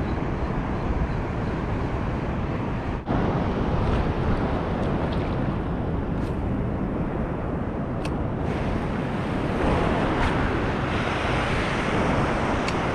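Wind buffeting the microphone over steady surf and water washing across a shallow reef flat, with a few faint ticks in the second half.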